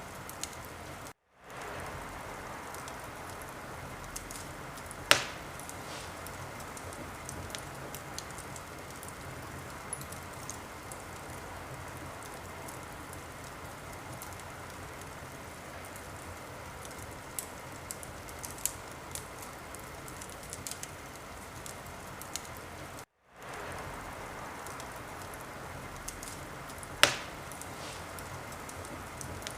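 Wood fire crackling steadily with a soft hiss and scattered small snaps, with two loud sharp pops, one about five seconds in and one near the end. The sound cuts out for a moment twice, about a second in and again past the twenty-second mark.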